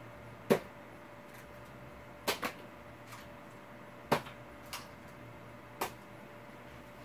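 About six sharp knocks and clicks at uneven intervals, one of them a quick double, with a faint steady hum underneath.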